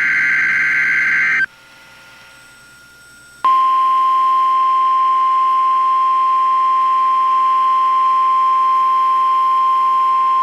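The last of the Emergency Alert System's buzzing SAME data bursts ends about a second and a half in. After a two-second pause, a steady single-pitch alert tone starts and holds on, announcing the next weather alert.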